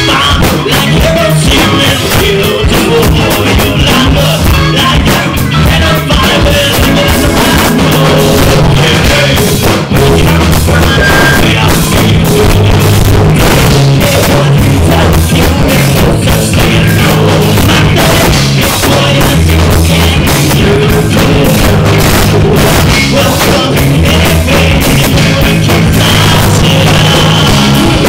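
Live rock band playing very loud: electric guitars, bass guitar and drum kit, with a singer's voice over them.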